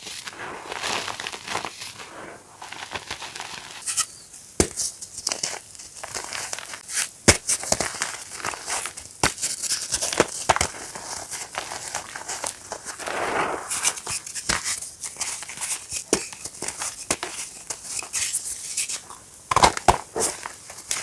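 Reformed gym chalk blocks being crushed and crumbled, giving dense, irregular crisp crunches and crackles with sharper snaps here and there.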